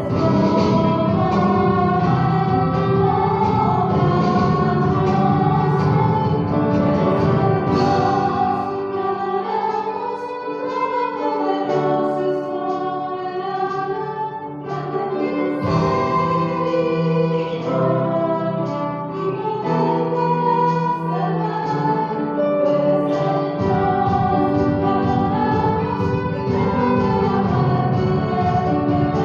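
Music with singing, heard as a choir: sustained, slowly moving vocal lines over instrumental accompaniment, with the low bass dropping out for a few seconds near the middle.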